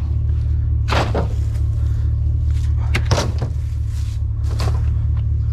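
A vehicle engine idling steadily, with a few sharp knocks and clunks of items being handled and set down, the loudest about a second in and about three seconds in.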